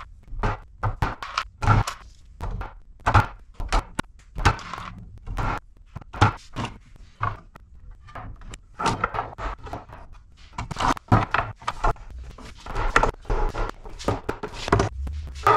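Mallet taps and wooden boards knocking together as oak boards are fitted edge to edge on loose tenons: a run of irregular sharp knocks and clatter, busier in the second half.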